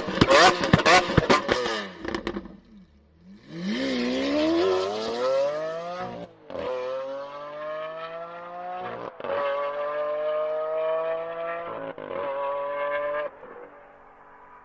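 Lamborghini Aventador LP700-4's V12 engine: a burst of sharp crackling bangs, then hard acceleration with the pitch climbing steadily through three quick upshifts, each a brief dip in the sound. About a second before the end it drops to a quieter, lower steady drone as the throttle is lifted.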